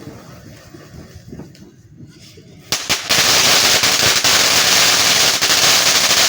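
A consumer firework goes off about three seconds in with a sudden, loud, continuous crackle of rapid pops that keeps going without a break.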